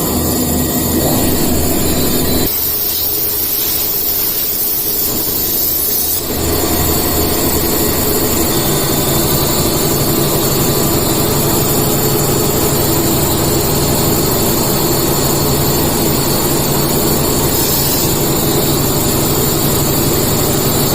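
CNC vertical milling machine running a cut, a steady loud mechanical noise; from about two and a half to six seconds in the low hum drops away and a high hiss takes over.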